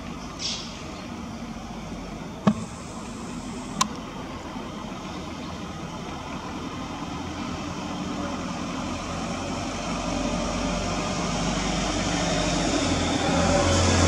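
Road traffic noise: a motor vehicle's engine and tyres growing steadily louder through the second half as it approaches. Two sharp clicks a few seconds in.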